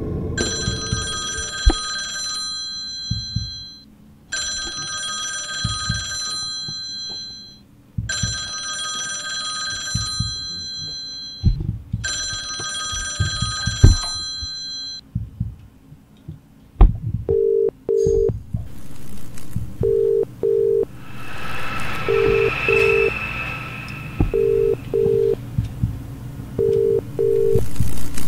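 A telephone ringing in four bursts of about two seconds each, with short gaps between them. A few seconds after it stops, a phone line gives paired low beeps like a ringback tone, repeating about every two and a half seconds, five times. Under it all runs a low rumble, and a hiss swells up near the middle of the beeps.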